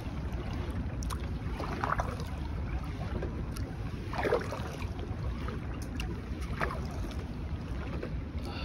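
Kayak paddle dipping into lake water about every two and a half seconds, three splashing strokes, the middle one the loudest, over a steady low rush of wind on the microphone.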